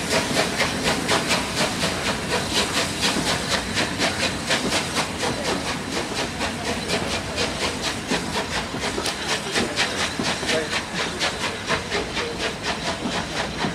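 Steam locomotive hissing steam, with a fast, even pulsing of about five beats a second, as a train of coaches rolls slowly along the track.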